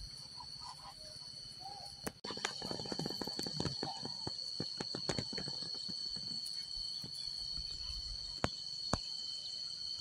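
A steady, high-pitched insect drone, with scattered rustles and clicks over it from about two seconds in.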